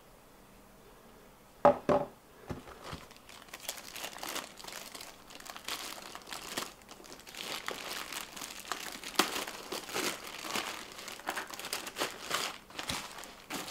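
Clear plastic bag crinkling as a tire inflator is worked out of it, after two sharp knocks about two seconds in.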